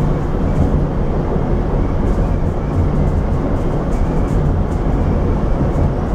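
Rotem Silverliner V electric commuter railcar running at speed, heard from inside the car: a steady, loud rumble of wheels on track with a faint wavering whine above it.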